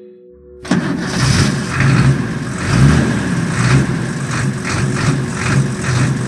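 Heavy truck engine running with an uneven, pulsing low rumble, cutting in suddenly under a second in. Faint steady music tones continue underneath.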